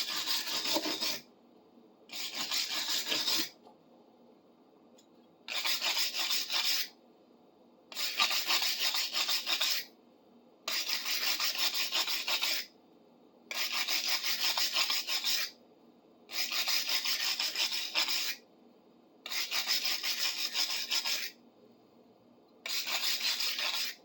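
Hand sanding of surface rust on a steel cold chisel: nine separate bouts of quick back-and-forth rasping strokes, each a second or two long, with short pauses between them.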